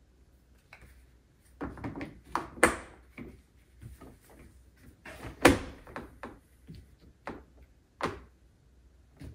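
Plastic body parts of a kids' electric ride-on car being handled and fitted during assembly: a string of knocks and clicks, the loudest about two and a half and five and a half seconds in.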